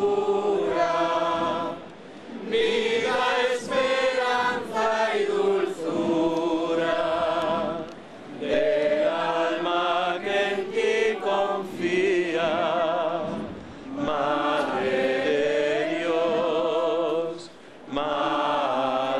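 A crowd of people singing a hymn together, in phrases of several seconds with short breaks between them.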